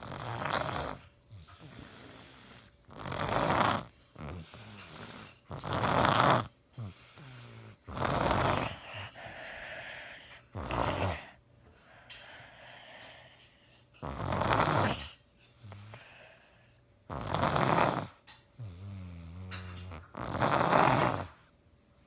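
A sick young girl snoring in her sleep: a loud, rasping breath about every three seconds, with a lower buzzing snore between them and a quieter stretch around the middle.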